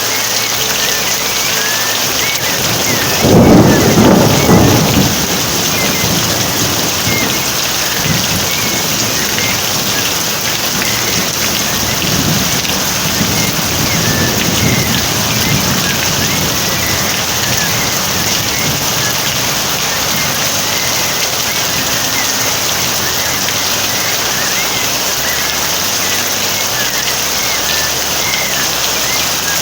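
Steady rain falling, with a loud rumble of thunder about three seconds in and a weaker rumble a few seconds before the middle. Faint short bird chirps sound on and off through the rain.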